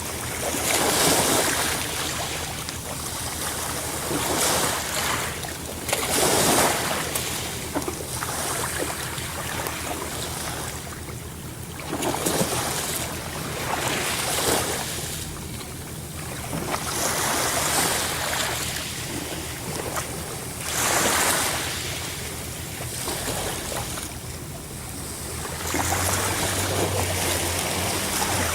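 Ocean waves breaking and washing on a shore, the surf swelling and falling back every few seconds.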